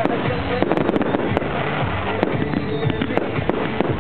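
Fireworks going off: aerial shells and rising comets burst in a quick run of sharp bangs and crackles, heard over music.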